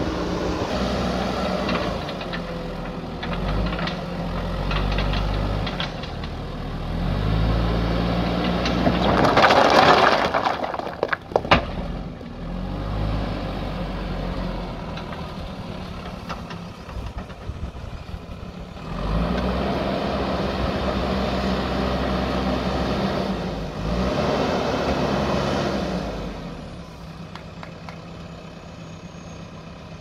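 JCB 3DX backhoe loader's diesel engine running and revving up and down as it works its front loader bucket, louder twice in the second half. About nine seconds in, a loud rush of noise and then a sharp crack as the bucket works into the stones.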